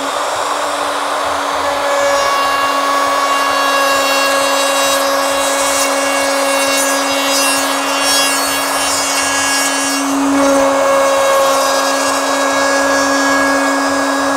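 Ryobi 2 HP variable-speed plunge router running with a steady whine as it routes a fin-box slot into a surfboard through an aluminium jig.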